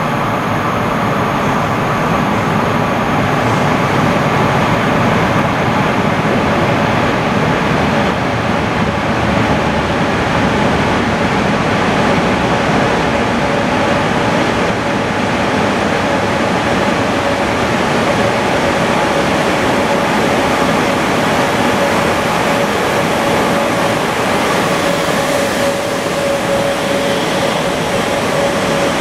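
SJ Rc4 electric locomotive hauling a sleeper train into an underground station in a rock tunnel, with the steady rolling rumble of the locomotive and coaches. A steady whine joins about halfway in.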